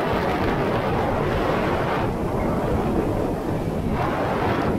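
Jet ski running at speed over choppy water, heard mostly as a steady rush of wind buffeting the bow-mounted camera's microphone. The rush drops back about two seconds in and surges again near the end.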